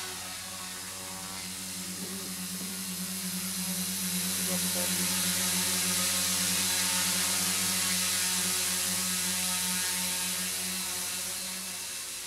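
Tricopter's electric motors and propellers running in flight, a steady pitched hum over a hiss. It grows louder around the middle as the craft comes close, then fades near the end as it moves away.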